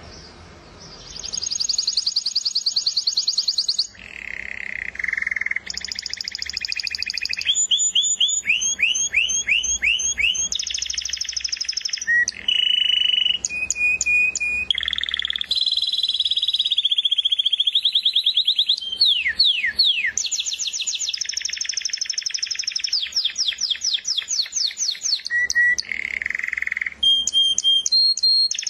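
Canary singing a long, loud song of rapid trills, switching every second or two to a new trilled phrase at a different pitch, some steady and some sweeping down.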